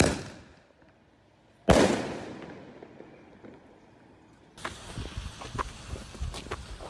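A homemade firework shell fires from a mortar tube with a sharp bang. About two seconds later, a much louder salute bang goes off in the air and rolls away in a long echo. Near the end, a lit fuse hisses and sputters with small crackles.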